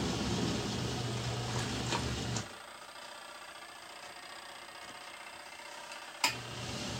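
Portable twin-tub washing machine's wash motor running with a steady hum, loaded with three large towels that the owner thinks are too many. It stops about two and a half seconds in, and after a pause of nearly four seconds it starts again with a sharp click. This is the wash agitator's run-and-pause cycle.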